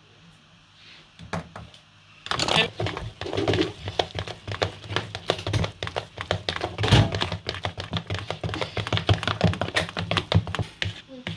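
A utensil clicking and tapping rapidly and irregularly against a mixing bowl as flour is stirred into cake batter, starting about two seconds in.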